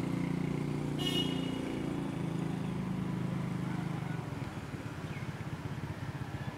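A small motor vehicle's engine running nearby, most like a motorbike: a steady low hum for the first few seconds that turns into an even, fast pulsing about four seconds in. A brief high chirp sounds about a second in.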